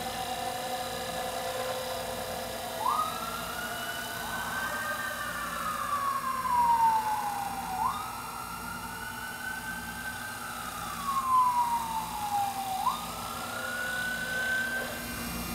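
A siren wails in slow sweeps about five seconds apart, each jumping up in pitch and then sliding slowly down, three times. Under it is the scraping of a chisel cutting a sugar maple pen blank spinning on a wood lathe.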